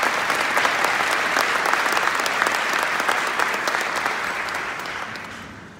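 Concert audience applauding, a dense patter of many hands clapping that fades away near the end.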